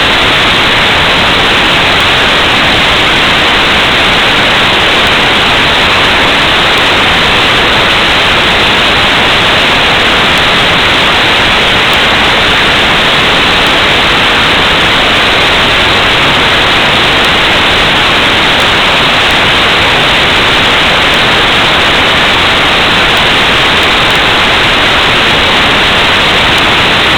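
Loud, steady static hiss with no change in it, an even electronic noise like a receiver with no signal.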